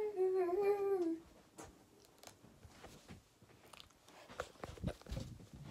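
A girl's voice singing a short wavering note for about a second, then faint scattered clicks and handling noise. Rustling starts near the end.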